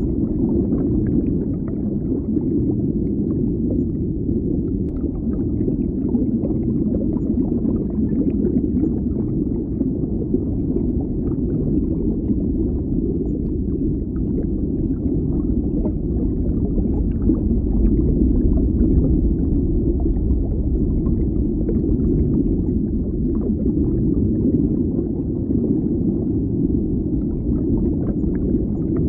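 Muffled underwater bubbling: a steady low rumble of water with faint small bubble pops scattered through it.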